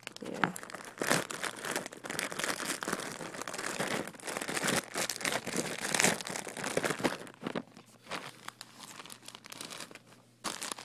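Plastic packaging around a plush toy crinkling and rustling as it is handled, a dense run of crackles that turns quieter for the last few seconds.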